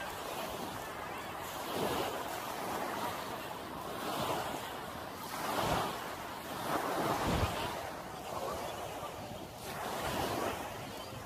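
Small waves washing up on a sandy beach, swelling and fading every couple of seconds, with wind gusting against the microphone now and then.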